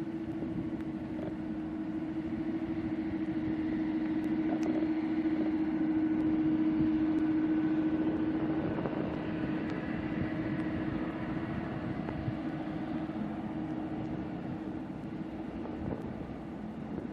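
Jet airliner engines at the airport: a steady hum with a constant low tone that swells to its loudest about seven seconds in, then eases off, under storm wind buffeting the microphone.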